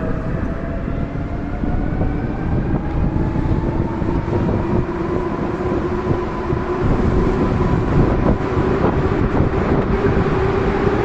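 Electric passenger train running on the line, a motor whine rising in pitch over the first few seconds and then levelling off as it gathers speed, over a steady rumble of wheels with scattered clicks from the rails.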